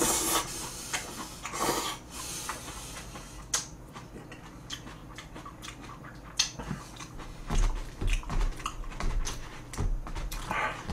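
A person eating udon noodles close to the microphone: a few noisy slurps in the first three seconds, then chewing with many small wet clicks. Low thumps come in over the last few seconds.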